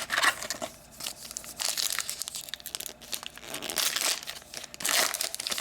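Wrapper of a hockey trading-card pack crinkling and tearing as it is opened by hand, in several rustling bursts.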